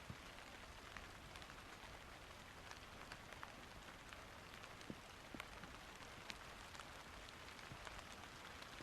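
Faint rain: a steady hiss with scattered sharp ticks of single drops.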